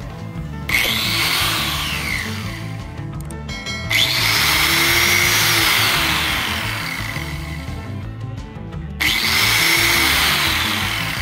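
Corded angle grinder with a cutting disc, its gearbox freshly regreased, run free with no load: switched on three times, about a second in, at about four seconds and near nine seconds. Each run has a steady high whine and dies away in a falling whine as the disc coasts down.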